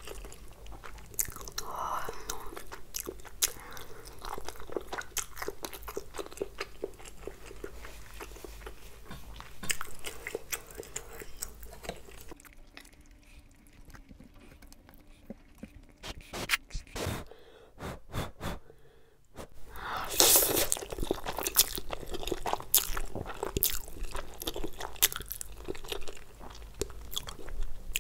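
Close-miked eating: chewing and crunching of crispy fried soya drumsticks, momos and noodles, with wet mouth clicks. A run of loud crunchy bites comes about twenty seconds in, after a quieter stretch.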